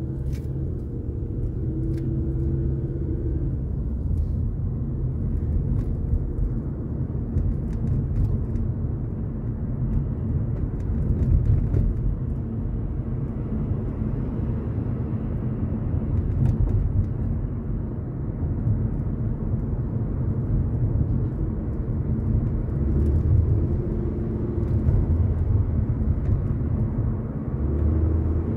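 Steady low rumble of a car on the move, engine and tyre road noise, with a few faint clicks.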